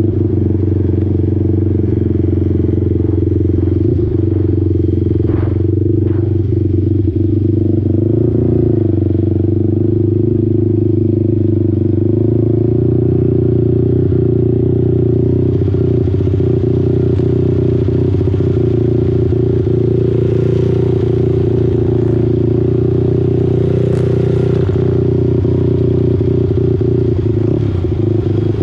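Racing quad's engine running steadily as it is ridden at an easy pace, heard from the rider's helmet camera. Its note dips and picks up slightly a few times.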